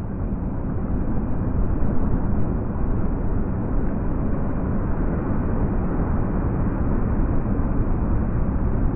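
Strong wind rumbling on the microphone, mixed with waves breaking on a rocky lakeshore; a steady, even noise with no distinct strokes.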